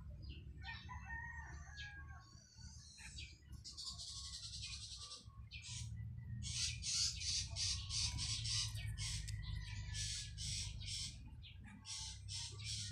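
A rooster crowing in the background, with rhythmic high-pitched chirping about two or three times a second through the second half, over a low steady hum.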